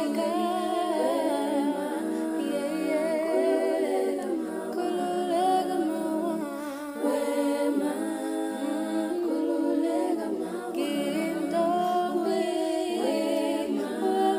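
Several voices singing a cappella in harmony, an unaccompanied vocal song that carries on throughout.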